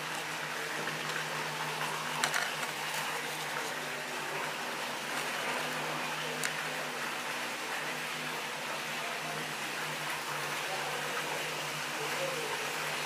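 A motor boat passing underneath in an underground tunnel: a steady low engine hum over a wash of churning water, with a few faint clicks.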